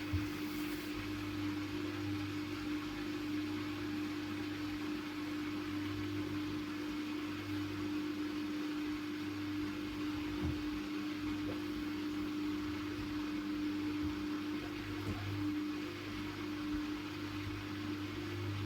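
Siemens Siwamat IQ 716 washing machine running with a steady hum, with a couple of faint knocks partway through.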